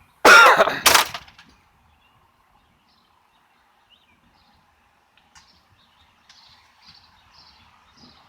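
A loud cough right at the microphone, two quick bursts in the first second. Faint bird chirps repeat through the last two seconds.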